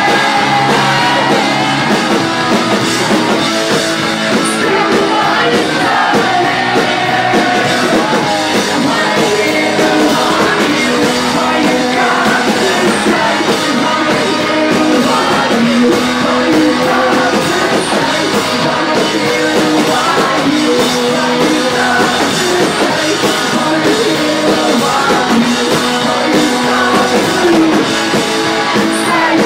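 Loud live rock band playing: electric guitar and a male voice singing and yelling into the microphone.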